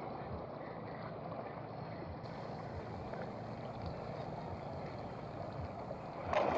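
Steady wash of shallow seawater at the shoreline, mixed with wind on the microphone; it gets louder near the end.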